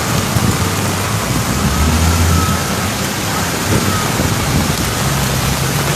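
Heavy rain pouring as a steady, dense rush of noise, with the low hum of vehicle engines underneath, strongest about two seconds in and again near the end.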